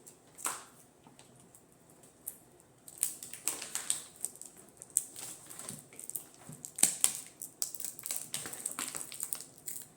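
Irregular sharp clicks and taps with high rustling, as objects and packaging are handled. Mostly quiet for the first three seconds, then busy clicking, loudest about seven seconds in.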